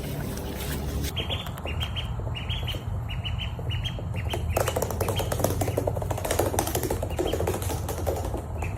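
A small bird chirping over and over, short high chirps a few times a second, with a stretch of rustling or wing-flapping noise in the middle, over a steady low hum.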